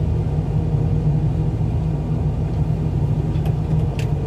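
Truck engine running steadily, a low even rumble with no change in speed.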